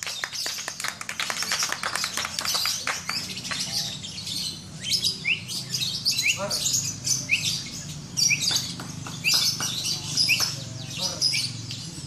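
Several caged lovebirds chattering: a dense run of rapid, shrill chirps, then from about five seconds in, short rising chirps repeated roughly every half second over the chatter.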